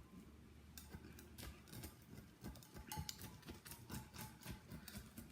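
Faint, scattered clicks and light taps of plates and utensils being handled, with a low hum underneath.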